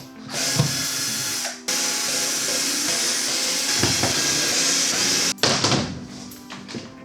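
Cordless drill-driver running in two stretches, a short one of about a second and then a longer one of about four seconds, as it takes out the screws of a van's headliner shelf cover. A few light knocks and clatters follow near the end.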